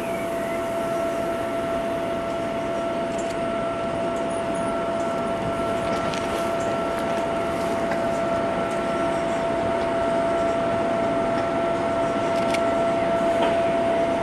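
SNCF electric locomotive of a TER train with VR2N double-deck coaches idling: a steady machine hum with a constant whine, slowly growing louder.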